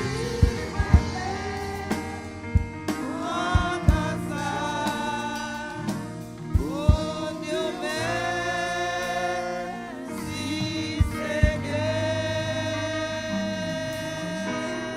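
Gospel singing: voices hold long, gliding notes over instrumental accompaniment, with drum hits now and then.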